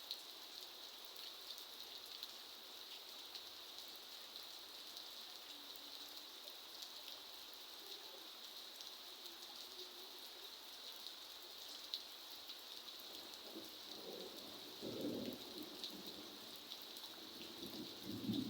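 Steady rain falling, a continuous hiss with many small drop ticks. In the last few seconds, low rumbles rise up under the rain a few times.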